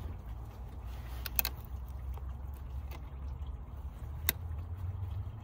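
Pliers working a hose clamp on a transmission cooler coolant hose: two sharp metallic clicks, about a second in and about four seconds in, over a steady low rumble.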